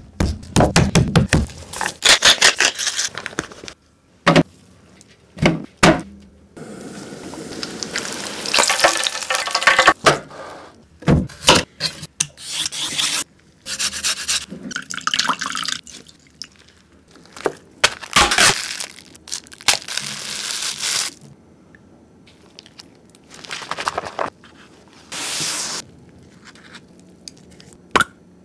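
Close-miked food-preparation sounds in quick succession: knocks, scraping and rasping runs, including a daikon radish rasped on a metal hand grater into a glass bowl midway. Near the end, a plastic flip cap on a spice jar clicks open.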